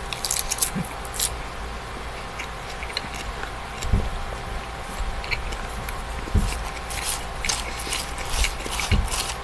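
Close-miked chewing of a mouthful of spinach salad: runs of quick mouth clicks about a second in and again over the last few seconds, with a few soft low thumps between.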